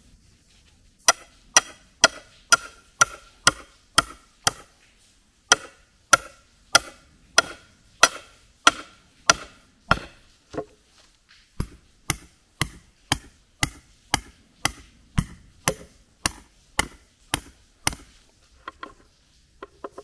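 Hammer driving a steel rebar stake into the ground beside a step board, in sharp ringing metal-on-metal strikes about two a second. There is a brief pause about ten seconds in, and a few lighter taps near the end.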